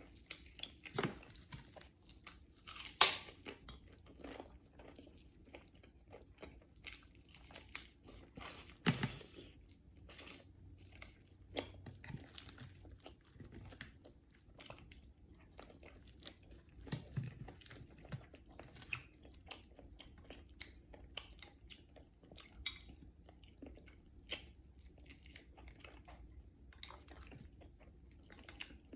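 Close-up chewing and crunching of crispy deep-fried pompano fish, an irregular run of sharp crunches with a louder bite about three seconds in and another near nine seconds.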